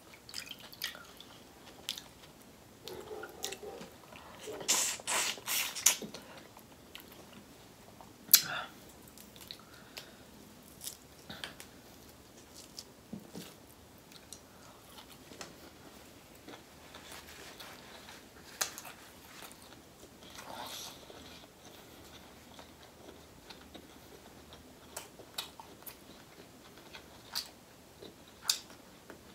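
Close-up eating sounds from boiled shrimp in butter sauce: wet chewing and lip smacks with scattered sharp mouth clicks, and a louder run of smacking about five seconds in.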